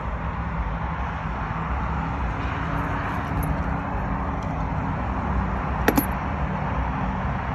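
Steady rumble of highway traffic, with one sharp click about six seconds in.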